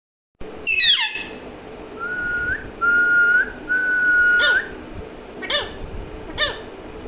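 Pet parrot whistling: a falling call, then three long steady whistles that each turn up slightly at the end, then three short falling chirps about a second apart.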